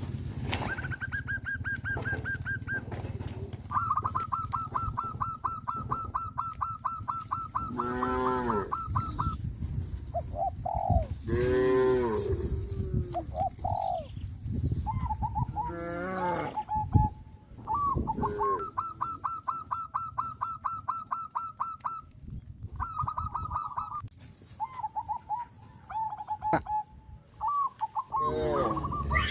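Cattle mooing several times, over long runs of fast-repeated high-pitched notes at one steady pitch and a steady low rumble.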